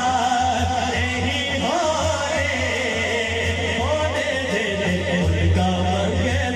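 Male voice singing a naat, an Urdu devotional poem, in long gliding melismatic lines over a steady low drone.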